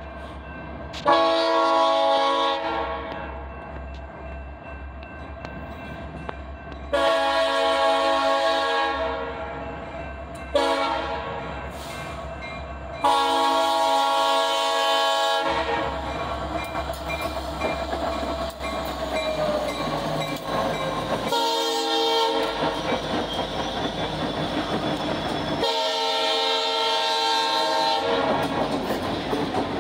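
Diesel freight locomotive air horn blowing the grade-crossing signal, long, long, short, long, as the train approaches. Then the EMD SD60-series locomotives pass close by with engine rumble and wheels clattering over the rails, with two more horn blasts, one past the middle and one near the end.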